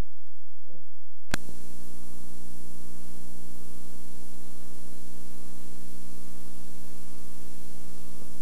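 Blank end of a VHS tape transfer: a sharp click about a second in, then a steady electrical hum with hiss.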